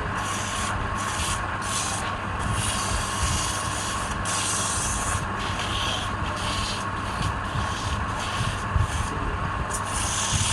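Sanding a spinning workpiece on a wood lathe: abrasive rubbing that comes and goes in short strokes over the lathe's steady motor hum.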